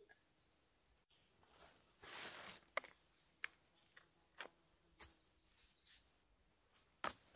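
Gear being handled at a backpack: a short stretch of fabric rustling, then several sharp clicks and knocks as a hatchet and other tools are taken out. Faint birdsong chirps in the background.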